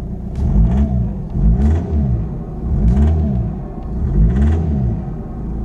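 The VW Golf GTD's 2.0-litre common-rail turbo diesel is blipped four times, each rev rising and falling back.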